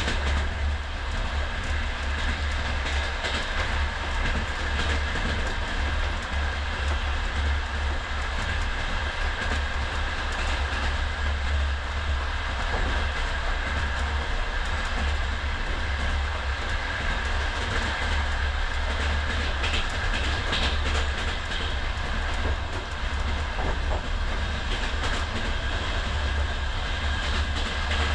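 Old compartment sleeping car of a Russian passenger train running along the line, heard from inside the compartment. A steady low rumble of wheels on rails is mixed with scattered faint clicks and rattles and a thin steady whine.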